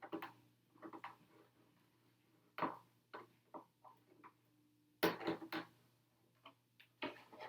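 Hands working on a plastic RC truck body and its sticker sheet: irregular light taps, clicks and crinkles, with a louder cluster about five seconds in.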